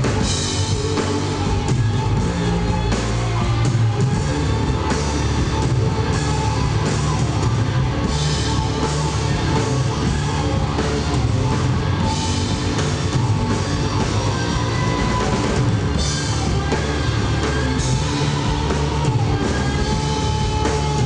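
Live instrumental rock played by a band: electric guitar, electric bass and drum kit, loud and continuous.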